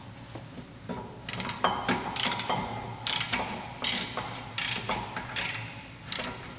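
Hand ratchet wrench tightening a rear brake caliper bolt: repeated short bursts of pawl clicking, one about every three-quarters of a second, starting about a second in.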